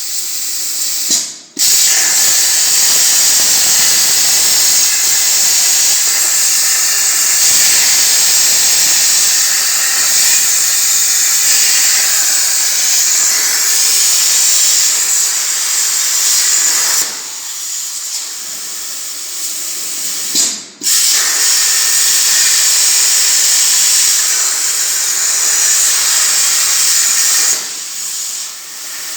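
CNC plasma cutting torch cutting sheet metal with a loud, steady hiss. The hiss drops to a quieter level for a few seconds before each brief break, and breaks off sharply about a second and a half in and again about twenty seconds in, then starts up loud again.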